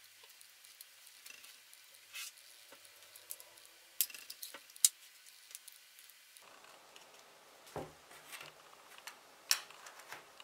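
Light, scattered clicks and taps of small plastic housing parts being handled and fitted together by hand, with a few sharper clicks a little after 4 s, near 5 s and about 9.5 s.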